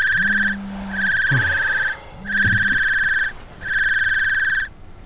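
Electronic alarm beeping: a steady high tone in beeps about a second long with short gaps between them. A lower buzzing tone runs under the first beeps.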